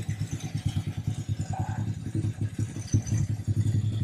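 Honda Grom's 125 cc single-cylinder engine running at low revs, a steady rapid putter, as the small motorcycle is ridden slowly up a loading ramp into a pickup truck bed.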